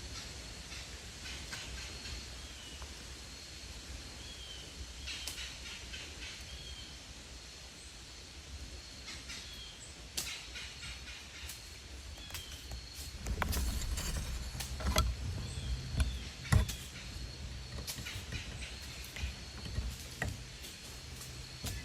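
Small bird chirps, short curved notes repeating every second or so, over quiet woodland background, with scattered sharp clicks. About two-thirds through comes a few seconds of rustling and knocks, the loudest part.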